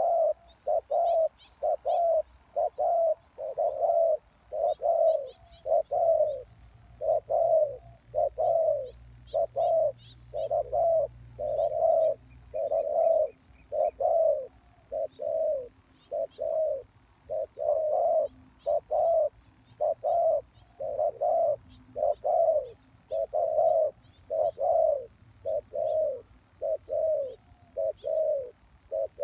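Spotted dove cooing: a long, unbroken run of short coo notes, about one to two a second, the lure call used to draw wild doves down. Faint high chirps of small birds come and go behind it.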